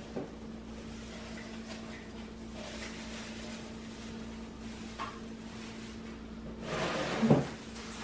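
A steady low hum with a few light handling knocks, then a brief scuffing rustle about seven seconds in that ends in a sharper knock, as a glass paint jar and a wooden board are handled on a table.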